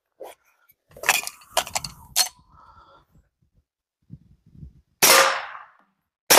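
Two 9mm pistol shots from a Glock 19, about a second and a half apart, each with a tail fading over about a second. They test whether the red dot still holds zero after being dropped in the dirt. A few light handling clicks and knocks come before them.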